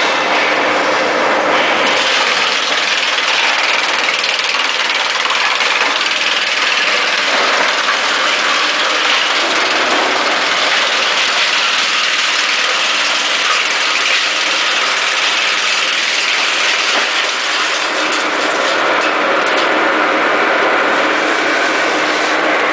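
Wood chipper running: a loud, steady mechanical noise that grows denser and harsher about two seconds in and holds steady after.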